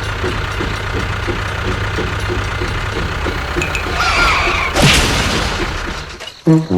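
An engine chugging steadily at about two to three beats a second, then a short squeal about four seconds in and a loud bang about a second later.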